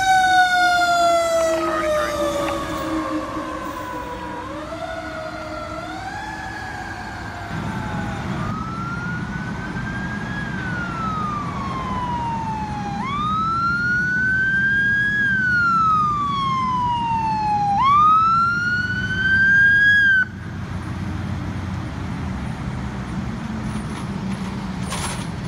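Emergency sirens: first a siren gliding steadily down in pitch as a fire engine pulls away. Then an ambulance's electronic wail siren rises and falls in slow cycles, growing louder as it approaches, and cuts off suddenly about twenty seconds in. The steady low rumble of the ambulance's engine is left as it drives past.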